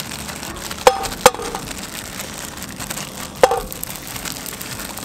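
Balls of garlic-basil butter dropped into hot olive oil in a nonstick pan: three sharp spits, about a second in, a moment later and past three seconds, each followed by a brief sizzle, over a steady hiss.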